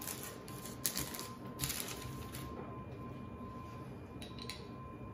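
Soft scratchy swishes of a pastry brush and parchment paper as cream is brushed onto unbaked scones, three short strokes in the first couple of seconds. Near the end come a couple of light clicks as the brush is dipped into a small cup of cream.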